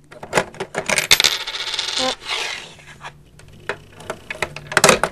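A Lego coin-operated candy machine worked by its lever: plastic bricks clicking while a nickel clatters and rattles through the plastic mechanism. A dense clatter comes about a second in, and there is a burst of sharp clicks near the end.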